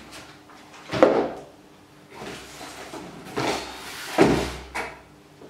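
Paper leaflets and cardboard packaging being handled on a table: rustling and scraping, with a sharp knock about a second in and a heavier thud a little after four seconds.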